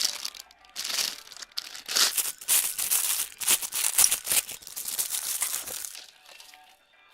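Packaging being opened by hand: irregular bursts of crinkling and rustling, with some tearing, that die away about six seconds in.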